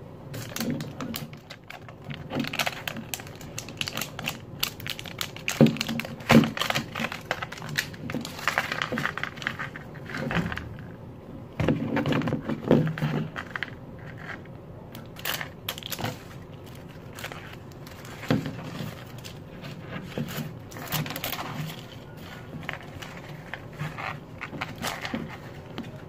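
Plastic wrapping crinkling and tearing in irregular spurts as hands peel the layers off an LOL Surprise ball.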